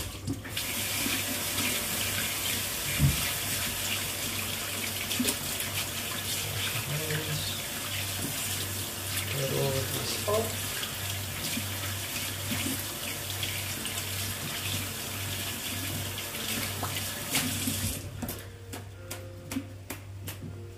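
Kitchen tap running into a sink with a steady splashing rush, shut off about three seconds before the end, followed by a few light clicks.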